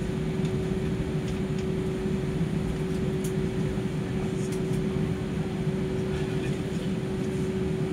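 Airbus A320 cabin noise: a steady rush of ventilation air with a low hum and one constant tone.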